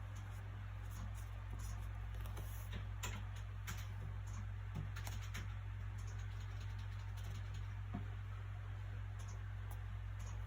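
Steady low background hum, with scattered soft clicks and ticks of paper as a book is handled.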